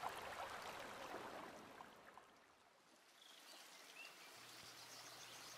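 Faint ambience sound effects: soft bath-water trickling fades out about halfway through, then a faint outdoor ambience fades in, with a single soft chirp.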